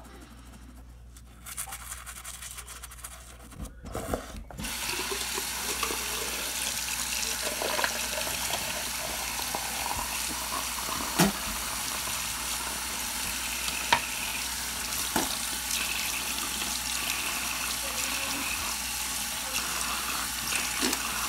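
Teeth being brushed with a toothbrush, scratchy scrubbing strokes, and from about four seconds in a tap running steadily under the brushing, with a few sharp clicks.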